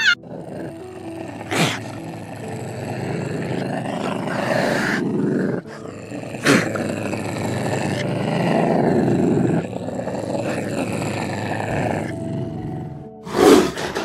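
A big cat's long, rasping calls, one after another, with a few sharp cracks between them, over soft background music.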